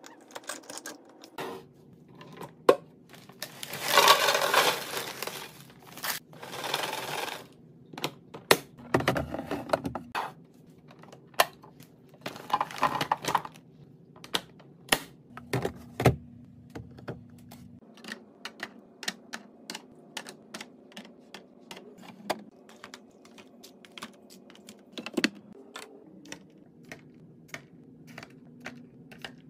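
Plastic and glass kitchen containers being handled on a countertop: irregular clicks, taps and clatters, with a few short noisy stretches in the first half. Later comes a run of quick light clicks and taps as plastic squeeze pouches are set into a clear plastic storage bin.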